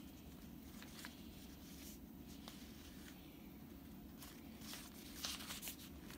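Quiet room tone with a steady low hum, a few faint clicks, and a soft rustle of paper and packaging near the end.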